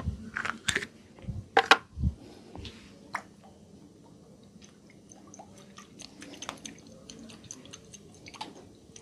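Wet squelching and crackling of hands rubbing oil-soaked hair against the scalp in a head massage. There are several louder squelches in the first two seconds, then fainter, scattered crackles.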